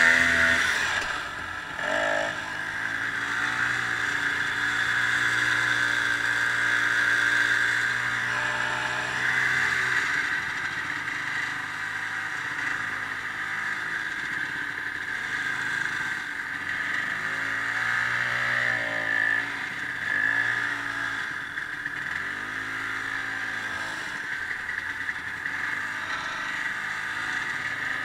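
Ski-Doo snowmobile engine running under way, its pitch rising and falling repeatedly with the throttle.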